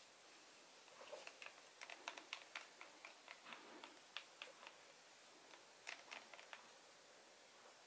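Wooden craft stick stirring acrylic paint in a small plastic cup: faint, irregular clicks and taps of the stick against the cup, in two spells with a short pause between.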